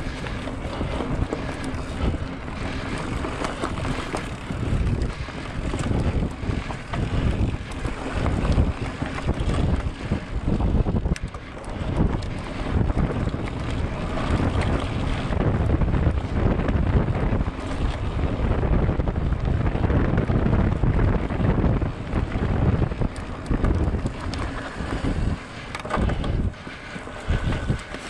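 Wind buffeting the microphone of a camera on a moving bicycle: a loud, uneven rumbling noise that keeps swelling and dipping.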